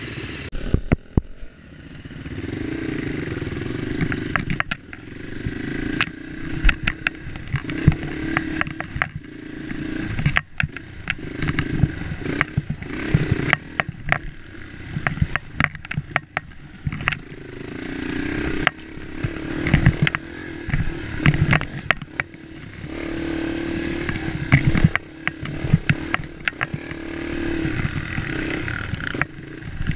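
Dirt bike engine revving up and down, the throttle opening and closing over and over while riding a rough trail, with frequent sharp knocks and rattles from the bike jolting over bumps.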